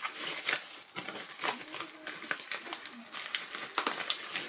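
Clear plastic wrapping crinkling and crackling as it is peeled off a gimbal's handle grip, in quick irregular crackles.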